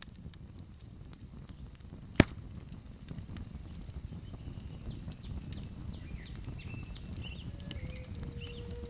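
Fire crackling over a low rumble, with scattered small pops and one sharp loud pop about two seconds in, and a few faint high chirps. A low flute note starts near the end and is held steady.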